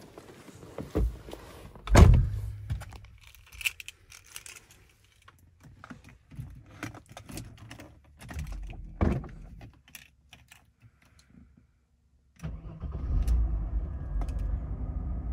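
Car door pulled shut with a thud about two seconds in, followed by key rattles, clicks and another knock. About twelve seconds in, the Mercedes W124 E320's M104 straight-six starts quickly and settles into a steady idle.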